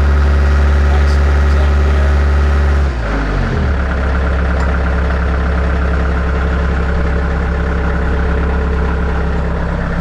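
Bobcat skid steer loader's diesel engine idling, its speed dropping and settling lower about three seconds in as the throttle lever is pulled back to low speed.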